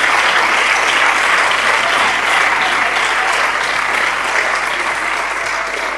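A chamber full of parliamentary deputies applauding, a dense, steady clapping that eases off slightly near the end.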